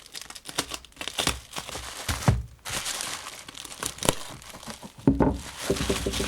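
Padded packaging being handled and unwrapped by hand: irregular crinkling and crackling with sharp snaps and some tearing.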